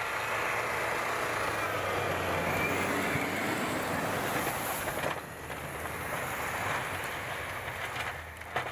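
Off-road 4x4 engine working hard as the vehicle climbs through deep snow, revs rising, with the wheels spinning and throwing snow. The sound drops off about five seconds in.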